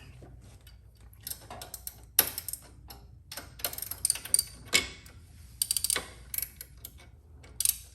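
7/16 hand ratchet clicking in short irregular runs as it is worked back and forth to loosen a floorboard bolt, with brief pauses between strokes.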